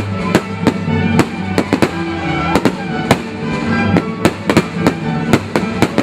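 Fireworks shells bursting in many sharp bangs, several a second at an irregular pace, over orchestral music with held notes.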